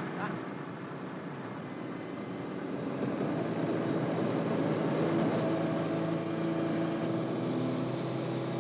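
Motorcycle engines running at a steady speed, a steady drone that grows louder about three seconds in.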